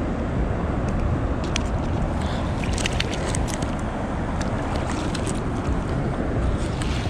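Steady wind rumble on the microphone over a flowing, rippling river, with scattered clicks and rustles of the camera being picked up and handled against clothing.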